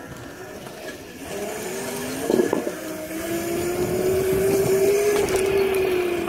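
Whine of a small electric ride-on's motor, its pitch climbing slowly as it speeds up and easing off slightly near the end. A knock comes about two seconds in.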